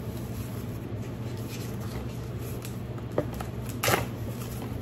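Tissue paper rustling as packing paper is pulled out of a pair of leather sandals, with a brief louder crinkle near the end. A steady low hum runs underneath.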